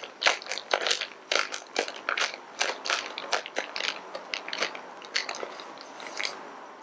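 Clear plastic resealable zip bag being pressed shut by hand: irregular crackling clicks of the plastic and its zip track, roughly three a second, stopping shortly before the end.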